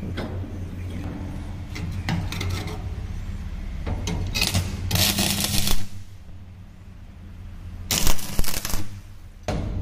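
Stick (shielded metal arc) welding: short bursts of arc crackle and hiss as tack welds are struck on a steel butt joint, one around five seconds in and another around eight seconds in, over a steady low hum. In the first seconds the steel plates clink as they are set in place.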